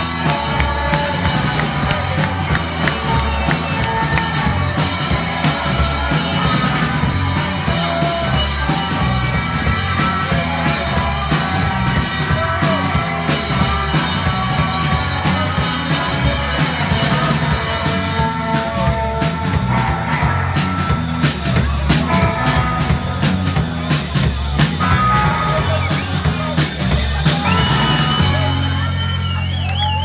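Live rock band playing loud: electric guitars over a drum kit with steady cymbal crashes and hits. Near the end the drumming stops and one held chord rings on.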